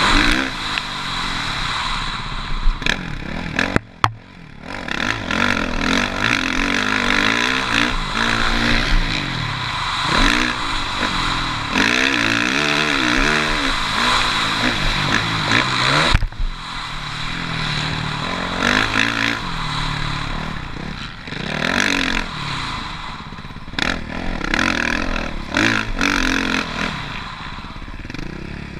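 Suzuki RM-Z450 motocross bike's single-cylinder four-stroke engine, revving up and falling back again and again as it is ridden around a track. The sound drops off sharply for a moment about four seconds in.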